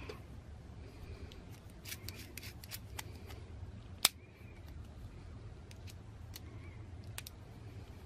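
Small metal clicks and taps of a Klein stubby nut driver being handled and changed over to its quarter-inch size, a quick cluster of clicks a couple of seconds in and one sharper click about four seconds in, over a steady low hum.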